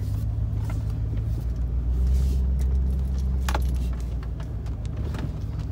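Pickup truck engine running as the truck drives off, heard from inside the cab: a steady low hum that deepens and grows louder about two seconds in and eases again near four seconds. A sharp click sounds about three and a half seconds in.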